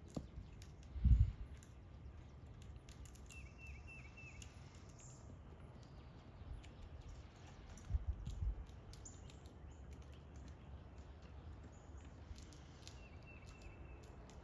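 A bird calling twice, each time a short quick run of chirps, the first about three seconds in and the second near the end. Between them the outdoor background holds a couple of low thumps and faint scattered clicks.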